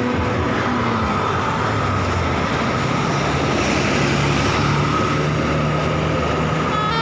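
Large bus passing close by, its diesel engine running with the engine note rising, over loud road and tyre noise.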